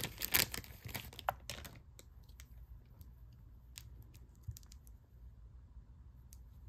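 Hands handling a pendant necklace and its cord: a dense patter of rustling and small clicks for about the first two seconds, then scattered light ticks.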